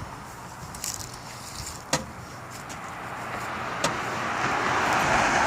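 Vehicle running noise that swells steadily over the last couple of seconds, with three sharp knocks or clicks spread through it.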